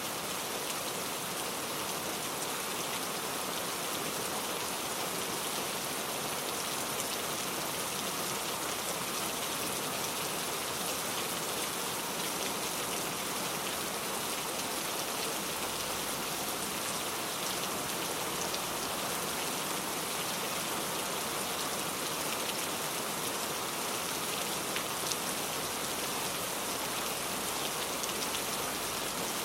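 Heavy rain falling steadily, a dense even hiss of drops with fine individual patters on a surface.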